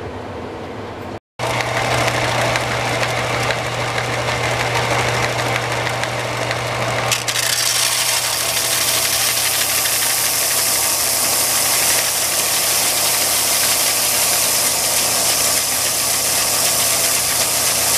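Bench belt sander running with a laminated hickory axe-handle blank pressed against its abrasive belt: a steady motor hum under a grinding hiss of wood on the belt. About seven seconds in the hiss turns brighter and harsher. The belt is doing little to remove stock; the woodworker calls these belts useless.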